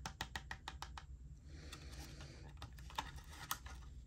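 Hard clear plastic case clicking and tapping under long fingernails as it is handled: a quick run of clicks in the first second and a half, then a few scattered ones, the loudest about three seconds in.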